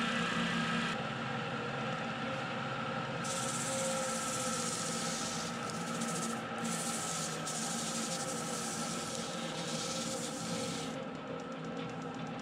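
A 100-year-old Syracuse Sander Co. D-2 15-inch disc sander running with a steady motor hum while a block of wood is sanded against its spinning disc. The sanding noise grows stronger a few seconds in, breaks off briefly twice, and stops about a second before the end as the wood is lifted off, leaving only the motor.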